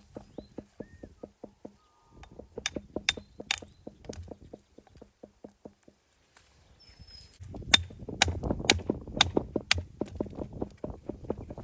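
Hammer striking stone to dress and shape it: three sharp strikes, then after a pause a series of five, about two a second, over a fast, even ticking.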